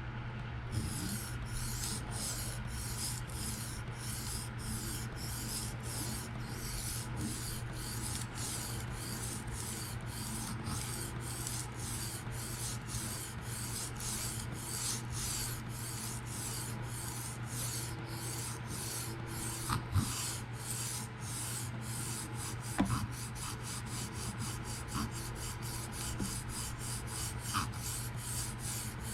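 A PM60-steel folding knife blade stroked back and forth across a diamond sharpening stone in even rasping strokes, about two a second, quickening near the end. The blade is laying in a new scratch pattern.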